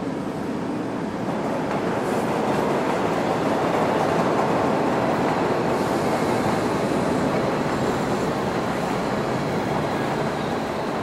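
Subway train running on the rails, a steady noise that grows louder over the first few seconds and eases slightly toward the end.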